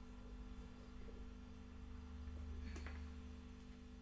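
Faint steady electrical hum in a quiet room, with one short tap near three seconds in, like a whiteboard marker touching the board.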